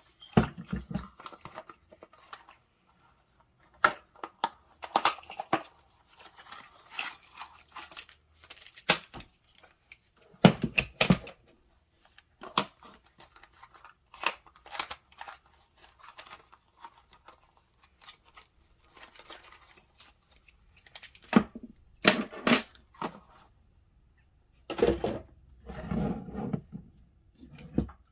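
Packaging being unpacked by hand: plastic and cardboard rustling and tearing in short irregular bursts, with a few heavier knocks as parts are set down.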